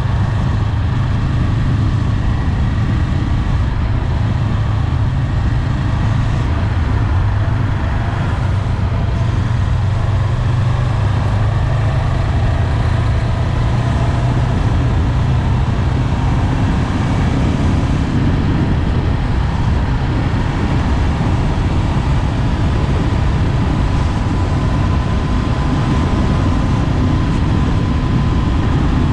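Honda 400X motorcycle's parallel-twin engine running steadily while riding, with wind and road noise; the engine note changes a little past halfway through.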